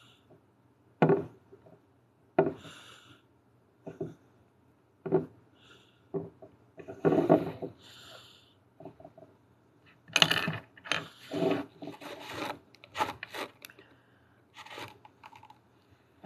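Handling noises from sculpting clay on a glass bottle: a sculpting tool rubbing and scraping, and the bottle and tools knocking on a wooden tabletop. They come as short irregular scrapes and taps, busiest about ten to thirteen seconds in.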